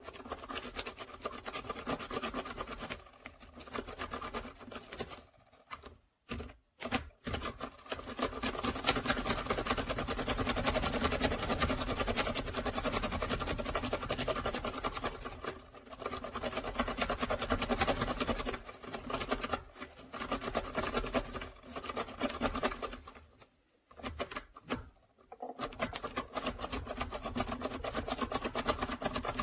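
A lock pick rake worked rapidly up and down inside a Master Lock padlock's keyway, its flat side rattling and scraping over the pin tumblers in fast continuous clicking, broken by a few short pauses.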